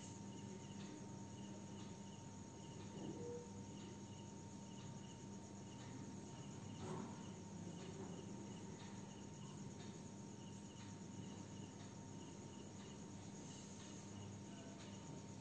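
Faint insect chirping: short high pulses, often in pairs, repeated a few times a second over a steady low hum.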